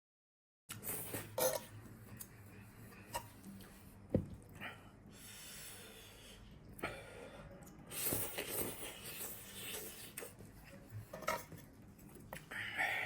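Close-miked eating sounds: cutlery clinking against dishes, with scattered clicks and short mouth noises. It opens with a moment of dead silence.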